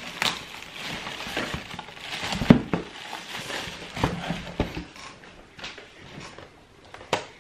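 Packaging being handled: paper and plastic wrapping rustling and crinkling as a boxed toy is unwrapped and lifted out of a cardboard shipping box, with irregular knocks and bumps of cardboard, the loudest about two and a half seconds in.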